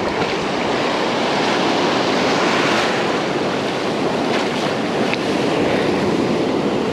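Ocean surf washing onto the beach, a steady rush of breaking waves.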